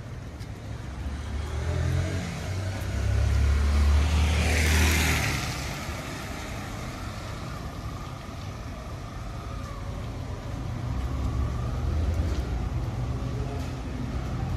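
Motor vehicles driving past on a rain-wet street. An engine rumble builds, and a vehicle passes close about four to five seconds in with a hiss of tyres on wet pavement. Another engine grows louder near the end.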